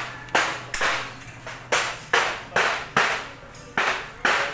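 A hammer striking metal again and again, about two blows a second, each with a short metallic ring.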